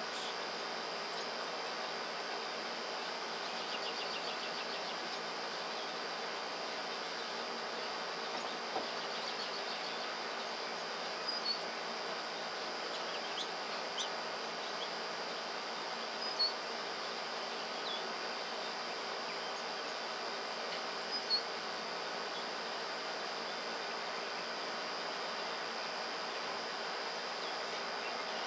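Steady chorus of insects, an even high drone, over a constant broad background rumble, with a few brief faint chirps or ticks scattered through it.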